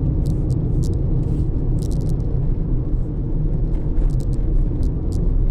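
Cabin noise of a 2017 Toyota Etios being driven: a steady low rumble of engine and road, with scattered short, high clicks.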